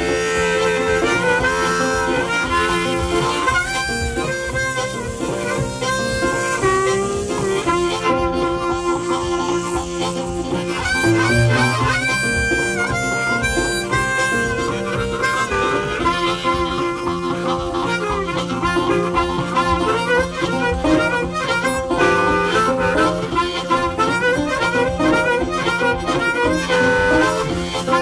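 Instrumental background music: a lead melody of held and bending notes over a steady bass line.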